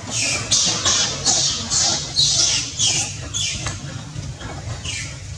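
Long-tailed macaque screaming: a quick series of shrill cries, each falling in pitch, about two a second, with one more near the end. These are the distress screams of a monkey being attacked.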